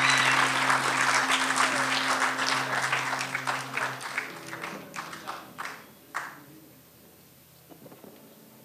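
Audience applauding as a song ends, with a held low note sounding underneath for the first four seconds. The clapping then thins to scattered claps and dies out about six seconds in.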